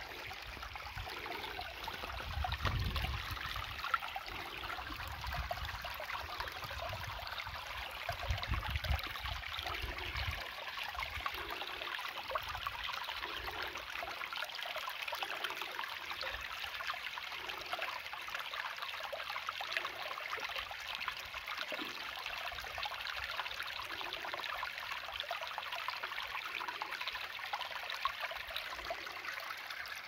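Shallow rocky creek running over stones: a steady rush and trickle of water, with a low rumble in the first ten seconds or so.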